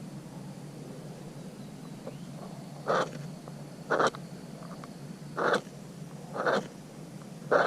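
Puffs of breath blown onto embers to rekindle a campfire. After about three seconds come five short, breathy blows, roughly one a second.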